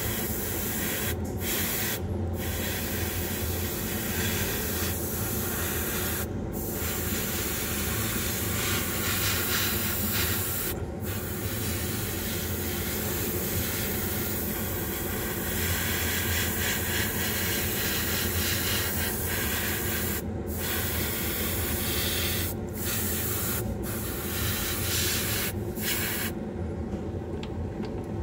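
Airbrush spraying paint with a steady hiss, cut by brief pauses as the trigger is let off, over the steady hum of a spray booth's exhaust fan. The spraying stops about two seconds before the end, leaving only the fan.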